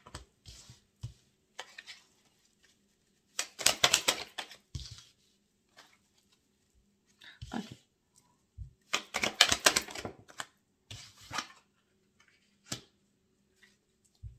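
A deck of oracle cards being shuffled by hand: two bursts of rapid flicking clicks, about four seconds in and again about nine seconds in, with lighter taps of card handling in between.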